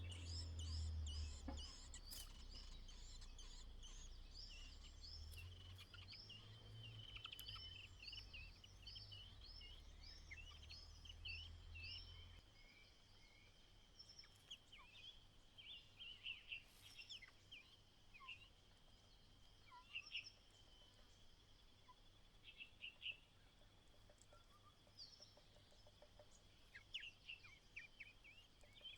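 Faint White-browed Laughingthrush calls: a quick run of short high chirps, then scattered chirps for the rest of the time, over a steady high tone. A low rumble underneath stops about twelve seconds in.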